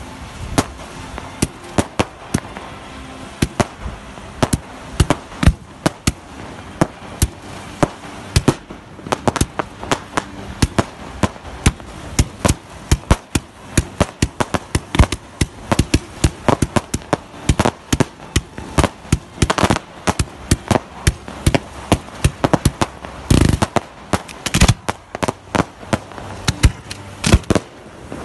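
Fireworks display: aerial shells bursting in a rapid, irregular string of sharp bangs, several a second, most tightly packed in the middle.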